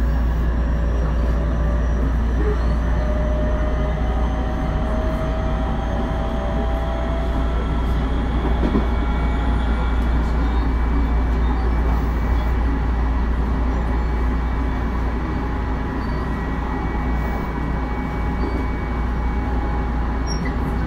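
Tobu 9050 series electric commuter train under way, heard in motor car MoHa 9552: a steady running rumble. Thin whining tones from the traction motors rise in pitch over the first several seconds, then hold steady.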